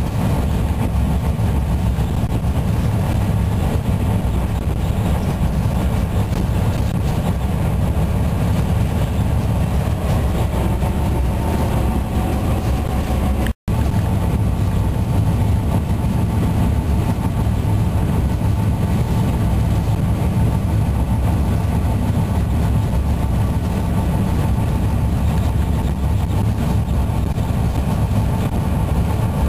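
Steady drone of a DXC-class diesel-electric locomotive's engine, heard inside the cab while under way, mixed with wheel and rail running noise. The sound cuts out for a split second about halfway through.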